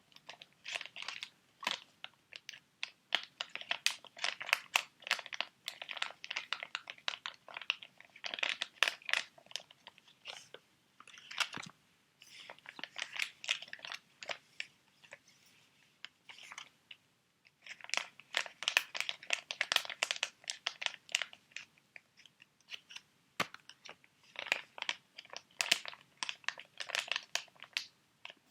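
Close-miked crinkling and scratching of plastic and foil sheet mask packets, in bursts of rapid crackles broken by short pauses.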